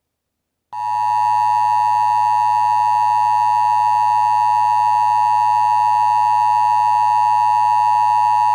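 Emergency Alert System attention tone: a loud, steady electronic tone that starts just under a second in, holds unchanged for about eight seconds, and cuts off abruptly.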